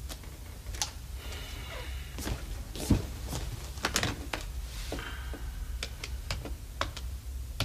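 Irregular light knocks and clicks, over a dozen scattered taps with a louder thump about three seconds in, over a steady low rumble.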